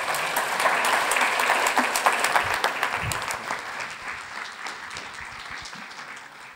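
Audience applauding, loudest in the first couple of seconds and then slowly fading away.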